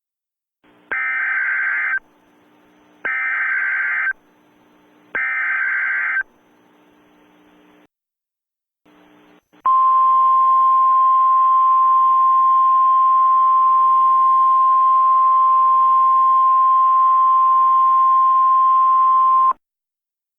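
Emergency Alert System header: three short, harsh electronic data bursts of about a second each, two seconds apart. After a brief gap comes a steady single-pitch alert tone lasting about ten seconds, which cuts off abruptly.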